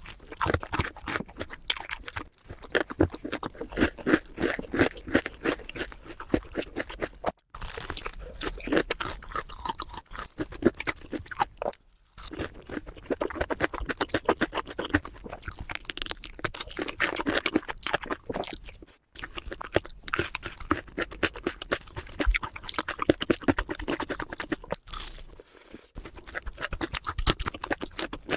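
Close-miked crunching and chewing of crispy food, many quick crunches in a row, broken by a few abrupt short silences.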